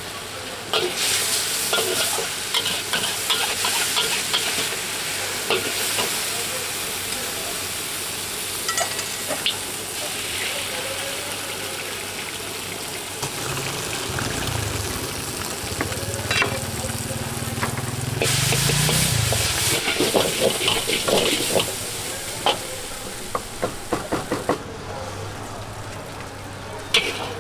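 Mee goreng mamak stir-frying in a wok over high heat: the noodles sizzle while the metal spatula clatters and scrapes against the wok. The sizzle surges twice, in the first seconds and again about two-thirds of the way through, and a low rumble joins in the middle.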